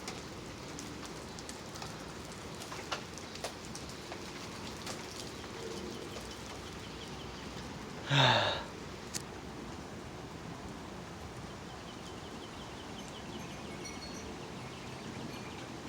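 Steady hiss of heavy rain falling during a thunderstorm, with a few faint drip clicks. About eight seconds in, a brief sound falling in pitch rises above it.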